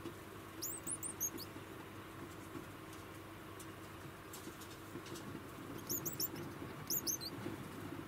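Degus chirping: short, very high-pitched squeaks in three quick clusters, one about half a second in and two more near the end.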